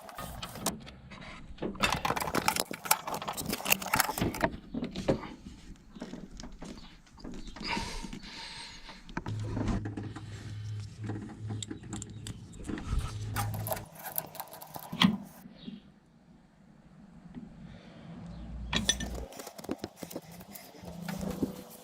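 Workshop handling noise: metal tools and car parts clinking, rattling and knocking. A low steady hum runs for a few seconds in the middle.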